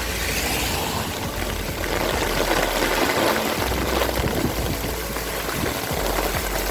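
Heavy downpour in a sudden storm: a dense, steady rush of falling rain.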